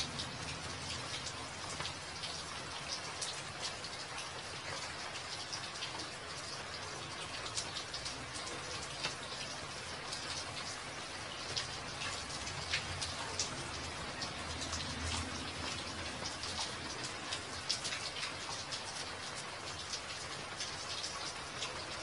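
Steady rain falling onto puddles on a bridge deck, a constant hiss with many distinct close drop splashes ticking through it.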